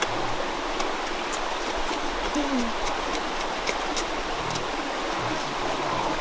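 Steady rush of a flowing stream, with faint scattered clicks over it and a brief low voice sound about two and a half seconds in.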